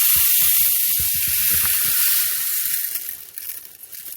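Small spherical silica gel beads pouring out through the port of a dehumidifier cartridge: a dense, steady rattling hiss that thins out and dies away about three to four seconds in.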